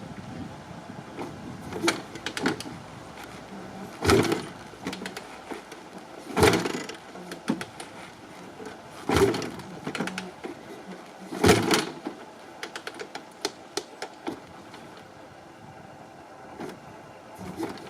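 Cold 1987 Suzuki LT500R's 500cc liquid-cooled two-stroke single running at a rough, uneven warm-up idle: an irregular patter of pops, with a louder burst every two to three seconds.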